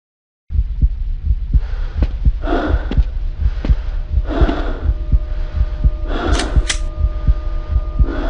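Low rumbling drone with fast regular thumps, about four a second, and hissing swells rising over it every second or so; steady high tones join about five seconds in.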